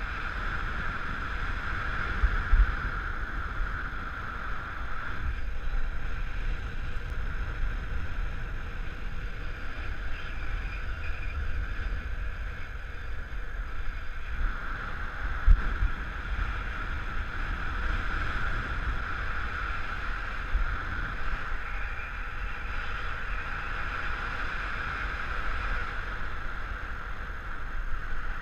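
Airflow rushing over the microphone of a paraglider pilot's body-mounted camera in flight: a steady hiss over a low buffeting rumble that swells and eases, with a couple of brief knocks, about two seconds in and midway.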